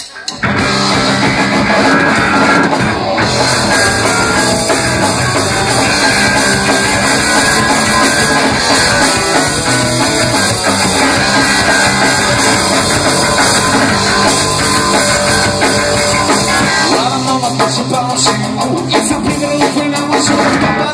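Punk rock band playing live: distorted electric guitar, bass guitar and drum kit come in together about half a second in and play loudly throughout. The low end drops away near the end.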